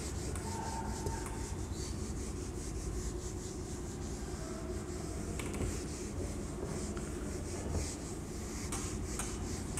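A yellow whiteboard eraser rubbed back and forth across a whiteboard, wiping off marker writing.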